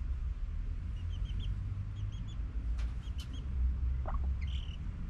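Chickens calling: short high chirps in quick runs of three, then a brief rising call and a squawk near the end, over a steady low rumble. Two sharp clicks sound about three seconds in.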